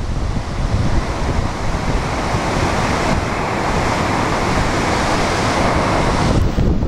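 Waterfall's falling water giving a steady loud rush, with wind buffeting the microphone in uneven low rumbles. The hiss brightens about three seconds in and turns duller shortly before the end.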